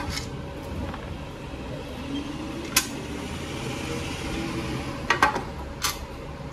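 Sharp metal clicks and knocks as the polished primary cover of a Harley-Davidson Shovelhead is handled and worked loose from the engine, with a quick cluster of knocks about five seconds in.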